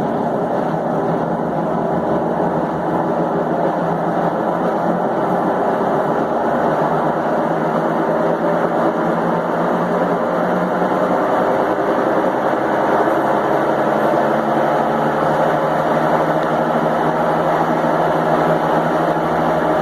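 Consul Maré 7.5 kg washing machine in its spin cycle, making a loud, steady mechanical noise. The noise points to a faulty part that needs replacing.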